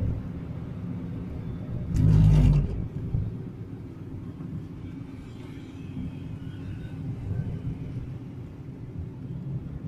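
Inside a moving car: the steady low rumble of engine and tyres on the road. A loud burst of noise about two seconds in lasts about half a second.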